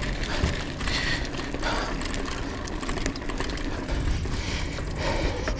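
Raider Z3X Pro 29-inch mountain bike rattling over cobblestones, with the ratchet-like ticking of its freewheel as it rolls.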